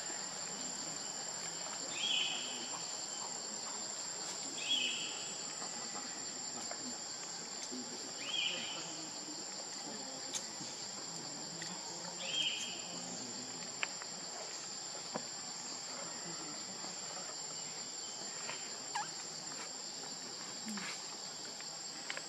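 Steady high-pitched drone of insects. A short call sounds every few seconds in the first half, with scattered faint clicks.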